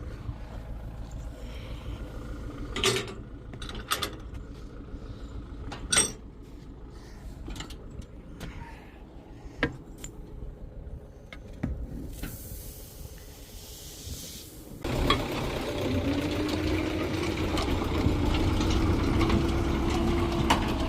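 Tractor-drawn seeding complex at work: scattered knocks and rattles at first, a hiss a little past halfway, then from about fifteen seconds in a much louder, steady engine hum as the rig runs.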